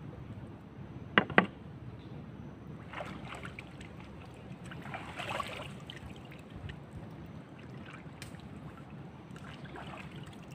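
Hands splashing and swishing water while rinsing a cleaned sea snake over the side of a wooden boat, the strongest splash about halfway through. Two sharp knocks come close together about a second in.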